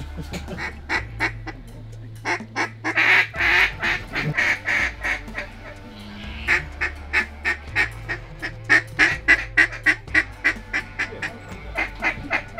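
Duck calls blown in long runs of short, quick quacks, fastest near the end at about five a second, over low background music.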